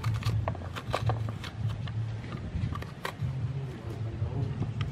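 Metal spoon scraping seeds and pulp out of a halved pumpkin: a quick string of short scrapes and clicks, over a steady low hum.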